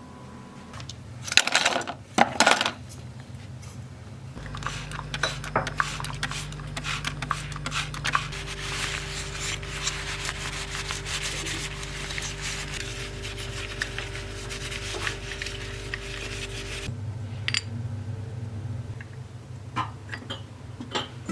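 A few sharp clatters, then a small motor runs steadily for about twelve seconds with a scraping, rattling noise over it, starting and stopping abruptly. A few light clicks follow.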